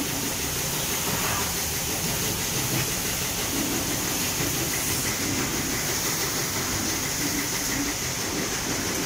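High-pressure water jet from a pressure washer spraying the underside of a car, a steady hiss that keeps on without a break, with a faint hum of the washer's pump beneath.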